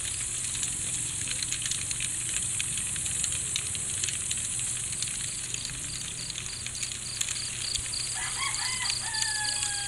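Night insects chirping, a steady high pulse about three times a second over a constant high hiss, with scattered faint clicks. Near the end a bird calls: a few short notes, then one long falling note.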